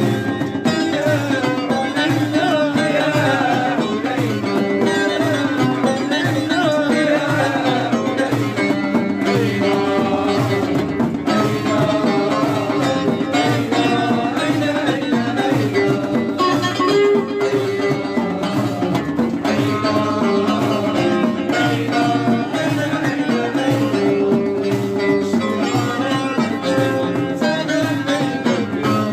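Music played throughout: a wavering string melody over a steady drone, with hand-drum percussion keeping a regular beat.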